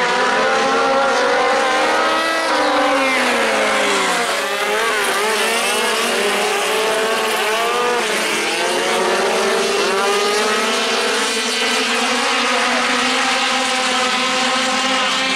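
Several midget race cars running together, their engines overlapping and gliding up and down in pitch as they speed up and ease off through the turns.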